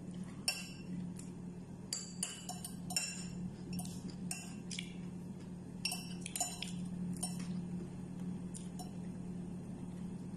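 Close-up eating sounds of fried chicken and rice eaten by hand: a scatter of short, sharp mouth clicks and smacks, mostly in the first seven seconds, over a steady low hum.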